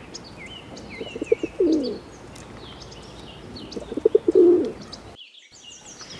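Pigeon cooing twice, about three seconds apart: each phrase is a few quick low notes running into a longer falling coo. Small birds chirp faintly in the background.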